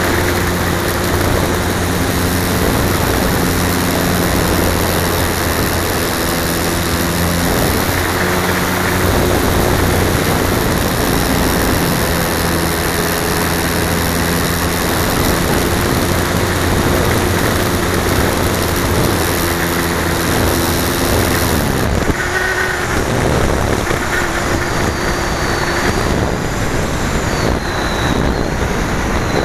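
Airflow rushing over a slope-soaring model glider, picked up by its onboard key-fob camera, with low steady hums that step in pitch now and then. The rush thins about 22 seconds in.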